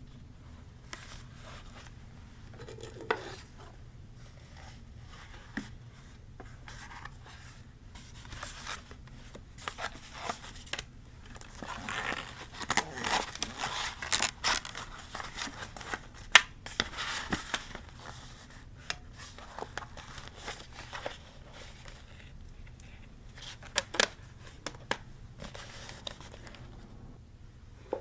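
Paper being cut with scissors and handled for a scrapbook journal: irregular snips, rustling and small taps, busiest in the middle.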